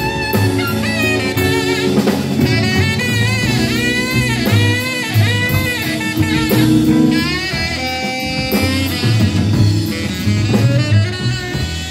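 Live rockabilly band playing an instrumental break: a saxophone takes a bending, melodic solo over upright bass, drum kit and guitars.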